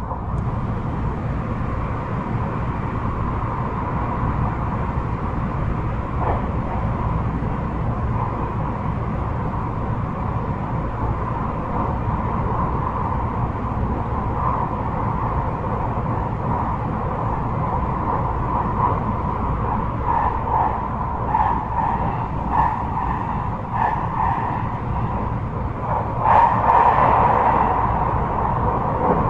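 Interior running noise of a JR 223 series 5000 subseries electric multiple unit at speed: a steady rumble of wheels on rail with a faint steady high tone. About 26 seconds in it grows louder and harsher for a couple of seconds.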